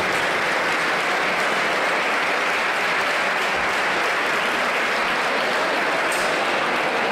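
Audience applauding steadily around an MMA cage, the clapping of a seated crowd, apparently greeting the end of a round.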